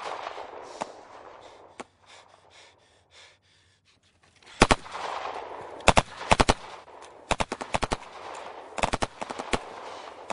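Rifle fire in a night battle: scattered single shots and short bursts of two to four rounds. There is a near-quiet lull about three to four seconds in, then the shooting picks up again with bursts in close succession.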